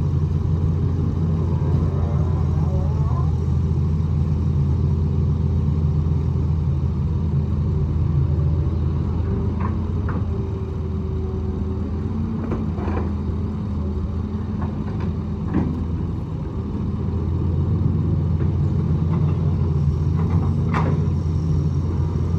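Hitachi EX200 excavator's diesel engine running steadily under working load, easing off briefly past the middle before picking up again. A few short knocks come through over the engine in the second half.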